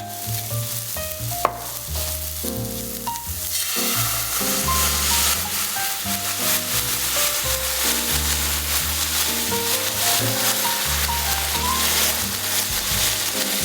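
Food sizzling as it fries in a pan, the sizzle swelling about three and a half seconds in and staying steady, with stirring, over soft background music. A single sharp click a little over a second in.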